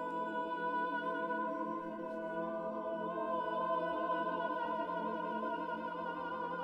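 Mixed chamber choir singing a dense chord of long, sustained notes. From about halfway, some of the higher notes waver slightly.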